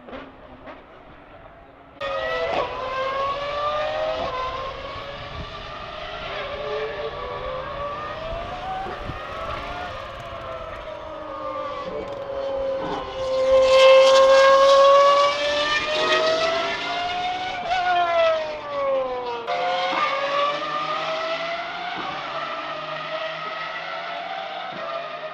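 Race cars' V12 engines at speed on track, the pitch climbing and dropping again and again through gear changes. The loudest part comes near the middle, when the Pagani Huayra R's V12 passes close by, drawing out a long low note before revving up again.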